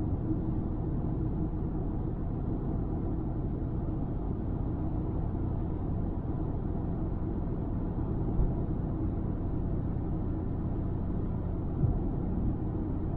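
Steady low rumble of road and engine noise inside a car's cabin at highway speed, with two brief thumps, about eight and twelve seconds in.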